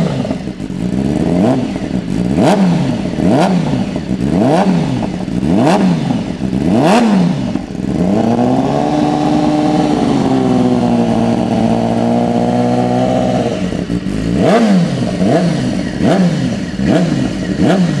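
BMW S1000RR inline-four sportbike engine revved through an Austin Racing CS stubby exhaust can with no dB killer fitted. Sharp throttle blips about once a second rise and fall back to idle. About eight seconds in the rev is held up for roughly five seconds, then snaps back down, and quicker blips follow.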